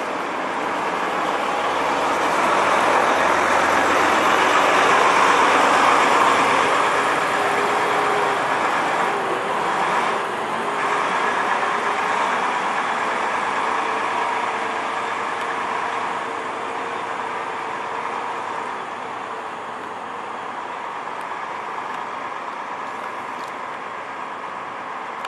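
Volvo 9700 coach's diesel engine and tyre noise as it drives past on a cobbled street. It is loudest about five seconds in, then fades slowly as the coach moves away.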